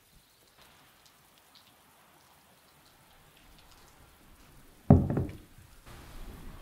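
Light rain pattering faintly, then about five seconds in a single loud thump as a ceramic plate of lettuce and green onions is set down on a wooden table.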